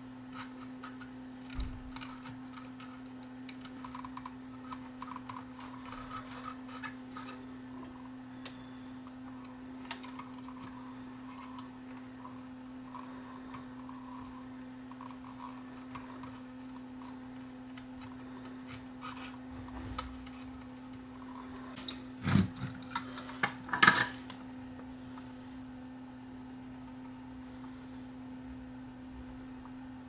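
Small clicks and taps of tools and wires being handled during bench work on an amplifier's power switch, with a louder cluster of sharp clicks and knocks about two-thirds of the way through, over a steady hum.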